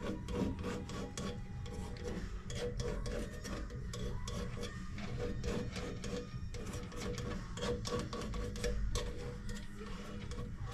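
An old piston ring scraped by hand around the combustion chamber edges of a freshly skimmed aluminium Bentley V8 cylinder head, deburring it. Quick, irregular strokes of metal scraping on aluminium, over a steady low hum.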